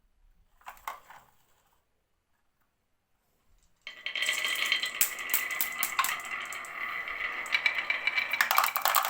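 Marbles clattering and rolling down a marble run: a dense stream of clicks and rattles that starts suddenly about four seconds in, after a near-quiet start.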